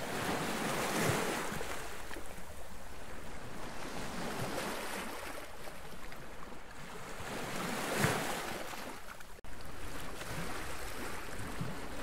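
Sea water washing against the catamaran's hulls, with wind on the microphone; the wash swells louder about a second in and again near eight seconds.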